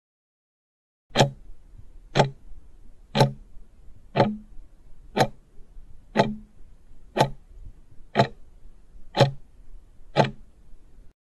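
Clock-tick sound effect for a quiz countdown timer: ten sharp ticks, one a second, starting about a second in.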